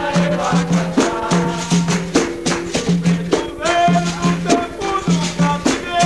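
Capoeira roda music: berimbaus playing a repeating rhythm, with caxixi rattles and other hand percussion. A voice sings over it from about three and a half seconds in.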